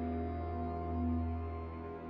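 Ambient drone music: sustained held tones over a steady low drone.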